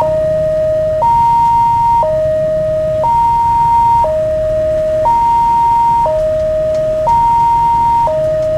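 Railway level-crossing warning siren sounding a steady two-tone high-low alternation, each tone held about a second, warning that a train is approaching.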